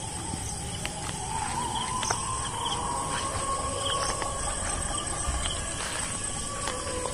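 Crickets trilling steadily, with a faint wavering tone lower down and a few light clicks.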